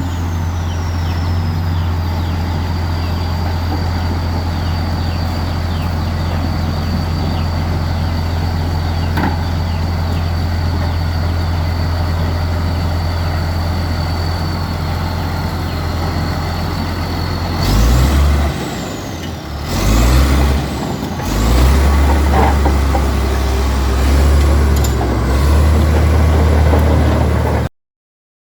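Komatsu D65P crawler bulldozer's diesel engine running steadily with a high whine over it. About 18 seconds in it revs up and down a few times, the whine rising and falling with it, then it runs at higher speed until the sound cuts off abruptly near the end.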